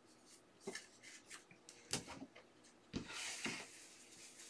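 Trading cards and their packaging being handled at a desk: scattered soft taps and rustles, with a longer rustle about three seconds in.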